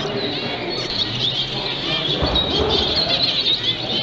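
Many caged zebra finches calling at once, a dense continuous chatter of short nasal chirps, with a dull low thud a little after halfway.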